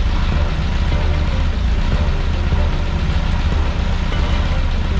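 Air-cooled 2332cc VW flat-four engine of a 1967 Beetle idling steadily, a low, even exhaust note.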